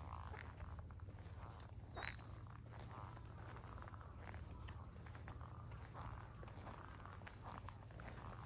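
Insects chirring in a steady high drone, with footsteps and small scuffs on an asphalt road. A brief sharp sound stands out about two seconds in.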